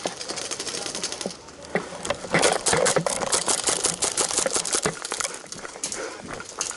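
Airsoft guns firing in rapid strings of sharp clicking shots, heaviest in the middle and thinning out near the end.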